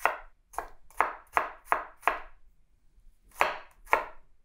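Chef's knife dicing a red onion on a wooden cutting board, each cut going through the onion and tapping the board. There are six quick cuts, about three a second, then a pause of about a second and two more cuts.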